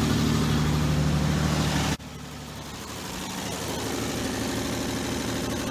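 Slant-six 225 engine of a 1966 Dodge Dart running steadily just after a cold start, its alternator now charging. About two seconds in the sound cuts abruptly to a quieter, steady engine drone that slowly grows louder.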